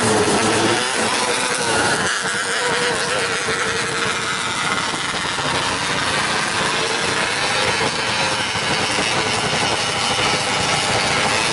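Several 270cc micro sprint cars' single-cylinder engines running on a dirt oval, their notes overlapping and rising and falling as the cars go around.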